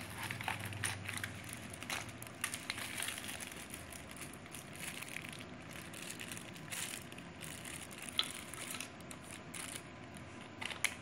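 Packaging crinkling and rustling, with scattered light clicks and knocks, as small camera accessories are unpacked by hand.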